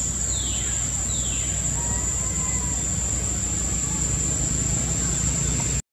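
Outdoor ambience: a steady high-pitched insect drone over a low rumble, with two short falling calls in the first second and a faint thin call about two seconds in.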